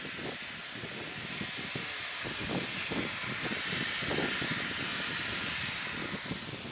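NZR WW class 4-6-4 tank steam locomotive starting away, with a steady hiss of steam from its open cylinder drain cocks and slow, uneven exhaust chuffs underneath.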